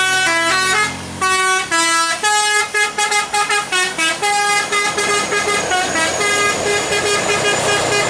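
Telolet multi-tone horn on a tourist bus playing a quick melody, the notes stepping up and down. It breaks off briefly about a second in, then comes back with quicker notes and ends in a fast repeating run.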